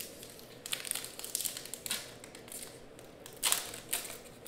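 Foil trading-card pack wrapper crinkling as it is picked up and handled, then torn open, in irregular crackling bursts; the loudest tear comes about three and a half seconds in.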